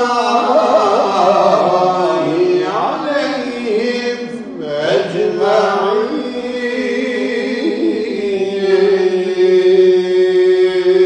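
Unaccompanied man's voice chanting a Turkish Islamic religious melody, a kaside or münacat. The melody glides and winds through ornamented turns, then settles on one long held note near the end.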